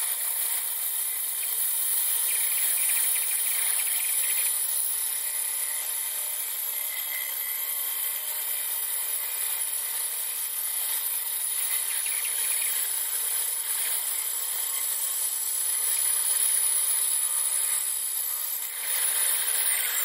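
Small bench-top power saw running steadily with a high whine as its blade cuts through the plastic hull part of a model kit.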